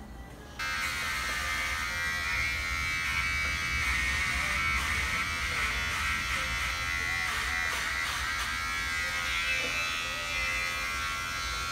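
Handheld electric hair clippers switched on about half a second in, then buzzing steadily as they cut through a gathered bunch of long hair.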